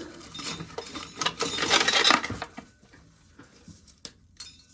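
Dry corn kernels being shelled off an ear and rattling into a metal can: a dense patter of kernels for about two seconds, then a few scattered clicks.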